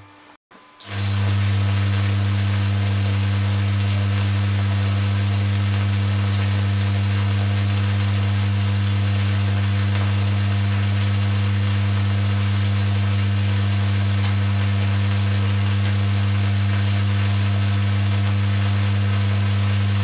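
Vacuum tube Tesla coil, powered from a microwave oven's high-voltage inverter supply, running with a purple streamer discharge from its top terminal: a loud, steady buzz with a hiss over it. The buzz cuts out briefly at the start and comes back about a second in.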